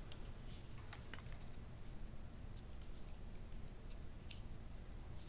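Scattered light clicks and taps, irregularly spaced, from a computer keyboard or mouse being worked as the presenter tries to bring up a slide pointer, over a low steady room hum.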